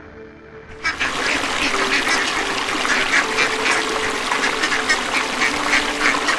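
A flock of ducks quacking together, a dense overlapping chatter of many short calls that starts abruptly about a second in.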